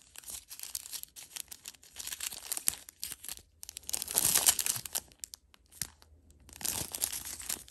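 Crinkling and rustling of jewelry packaging being handled and unwrapped, in short crackly bursts, loudest about four seconds in and again near the end.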